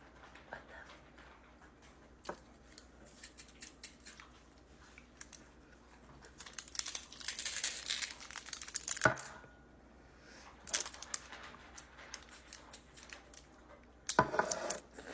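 Food wrapping crinkling and tearing in bursts, busiest for a couple of seconds around the middle, with scattered clicks and taps and one sharp click just after it.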